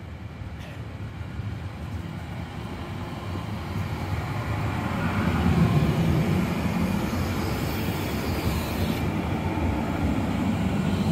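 Stadler (ex-Vossloh) Citylink tram-train arriving at a platform and slowing, its rumble growing as it nears and loudest about six seconds in. A high hiss cuts off suddenly about nine seconds in.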